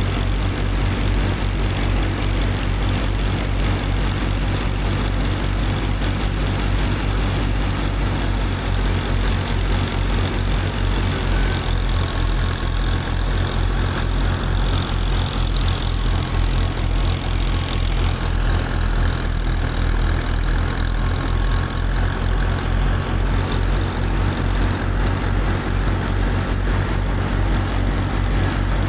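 Miniature DIY wheat thresher running steadily while threshing wheat, its drum driven through a driveshaft by the mini tractor's small motor: an even mechanical hum with a fast low pulsing.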